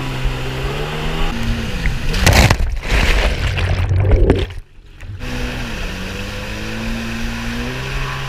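Yamaha SuperJet stand-up jet ski engine running, broken by loud water splashing and churning as the microphone plunges into the water, with a brief muffled drop-out about halfway through; then the engine comes back and rises in pitch.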